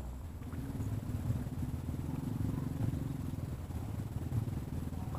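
A small engine running steadily, a low even hum with no change in pitch.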